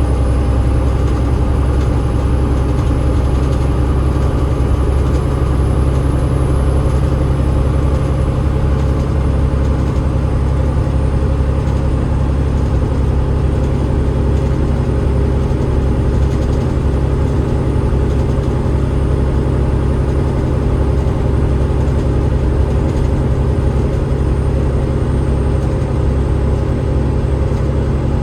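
Steady drone of an Alexander Dennis Enviro500 MMC double-decker bus's Cummins ISL8.9 diesel engine and ZF EcoLife six-speed automatic gearbox running at an even pace. A thin high whine above it drops slightly in pitch about eight seconds in and again near the end.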